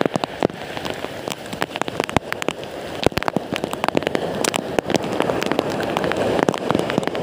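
Heavy rain falling: a steady hiss of rain with many irregular sharp ticks of drops striking close by.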